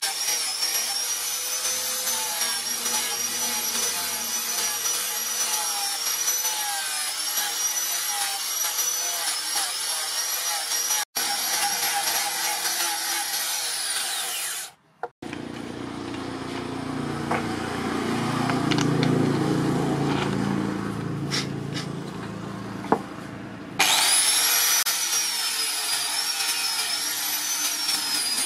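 Angle grinder with a sanding pad running against a wooden sword handle, its high motor whine wavering in pitch as it bears on the wood. About halfway through the whine stops and for several seconds gives way to a lower rubbing sound with a few sharp clicks, then the grinder's whine returns near the end.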